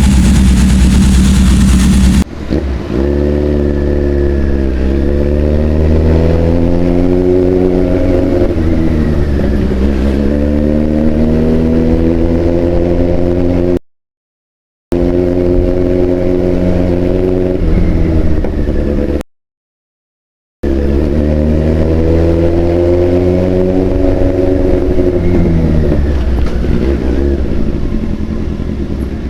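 Big sport motorcycle engine revving through its exhaust, the pitch rising and falling in slow repeated swells. The sound cuts out completely twice for about a second each.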